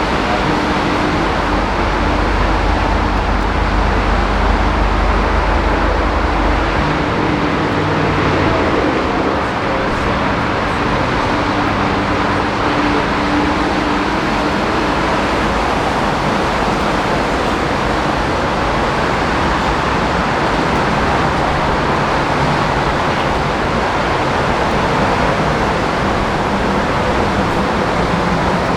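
Heavy rain falling as a loud, steady hiss. Under it a low drone, from aircraft at the airport, fades out around the middle.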